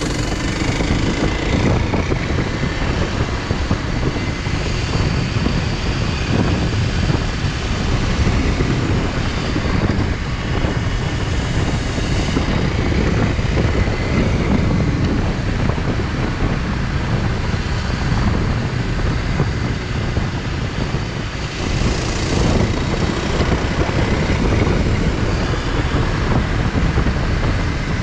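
Dual-sport motorcycle riding under way: the engine runs steadily, mixed with wind rumble on the microphone.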